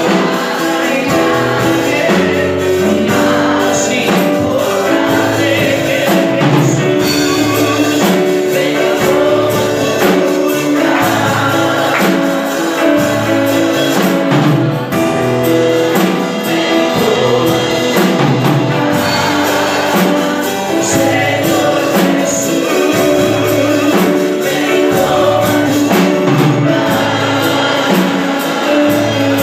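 Live gospel worship song: a man singing into a microphone over keyboard and a drum kit keeping a steady beat.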